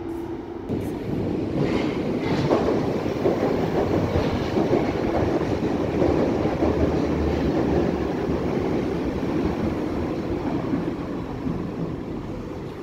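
Berlin U-Bahn train running into the underground station past the platform, its wheels and running gear rumbling on the track. The noise builds about a second in and is loudest while the cars pass, then fades over the last few seconds as the train moves off down the platform.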